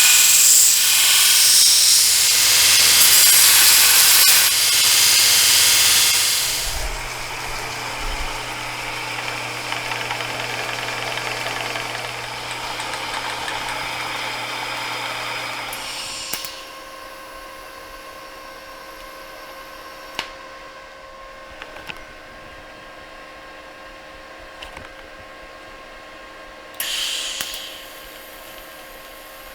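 Electric welder laying a short weld, a loud steady hiss lasting about six seconds, with the machine's hum carrying on for several seconds after. The shop then goes quieter with a low steady hum and a few clicks, and a second brief hissing burst comes near the end.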